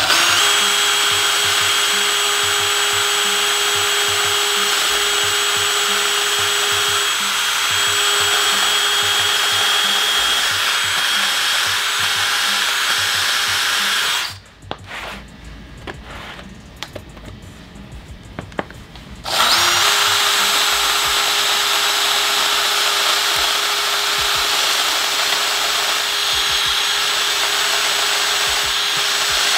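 Cordless drill running steadily as its twist bit bores pilot holes through two stacked plywood boards. It stops for about five seconds a little past the middle, then spins up again with a short rising whine and keeps drilling.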